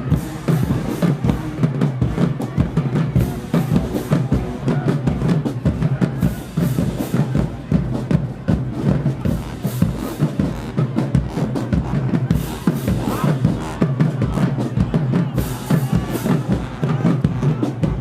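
Marching band drumline playing a fast, driving cadence on snare and bass drums.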